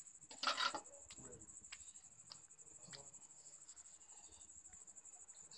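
A short scraping rustle about half a second in, then a few faint sharp taps, as a snake-catching rod and hook work near a metal tray on the floor; crickets chirp steadily throughout.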